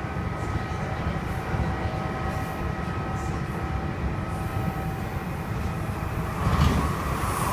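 Kintetsu 2610 series electric train running, a heavy low rumble mixed with several steady high whining tones, the sound the uploader calls abnormal, a blend of high and low. The whine fades out about two thirds of the way through, and a louder rush of noise follows near the end.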